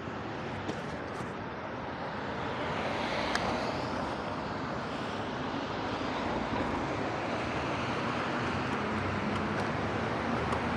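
Traffic and road noise on a wet street under an elevated road: a steady rushing hiss that swells about three seconds in and then holds.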